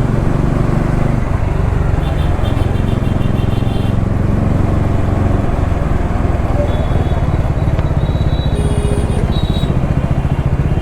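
Motorcycle engine running steadily while riding through traffic, a constant low drone with road and wind noise. A couple of faint high-pitched beeps sound partway through.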